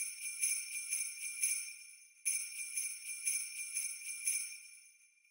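Jingle bells shaken in a steady beat, about two shakes a second. The jingling fades, starts again a little over two seconds in, and dies away near the end.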